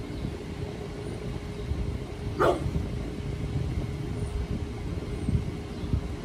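Brindle pit bull giving one short bark about two and a half seconds in, over a steady low rumble.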